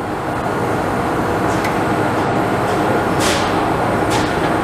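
Doucet PMCT-HD stroke belt sander running: a steady whir of its abrasive belt turning over the pulleys, with a faint hum. Brief hissing swishes come about three and four seconds in.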